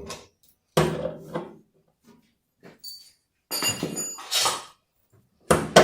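Metal tools and parts being handled while a washing machine's mechanism plate is unbolted: scattered knocks and clinks with short pauses between them. There is a ringing metallic clink about three to four seconds in and a heavier clank near the end.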